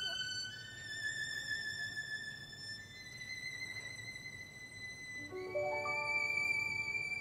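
Violin holding long, high notes that climb step by step, with piano notes coming in underneath about five seconds in.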